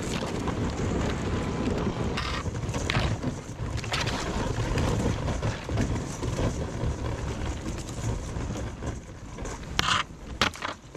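SeaBird Victory HV sea kayak pushing through thin ice on a canal: a continuous crackling and scraping of ice along the hull, with a few sharper cracks as plates break, as the nose of the kayak breaks the ice ahead.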